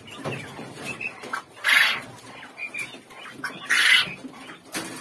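Young quails peeping in their cages, with two short noisy bursts of flapping and rustling, about two seconds apart, as the birds are handled in the wire cage.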